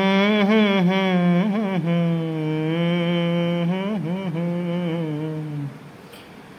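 Background music: a solo voice in long, drawn-out melodic notes with ornamented pitch turns, chant-like rather than worded. The phrase begins suddenly and breaks off a little before the end.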